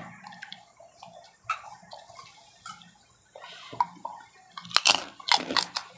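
Close-up chewing and crunching of crispy fried macaroni chicharon, a scatter of crackles with a louder cluster about five seconds in.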